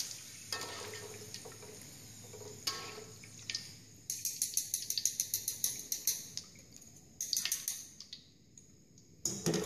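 Fried potato cubes draining in a wire strainer over a wok of hot oil: oil dripping back into the wok, with runs of quick, crisp crackling ticks from about four seconds in.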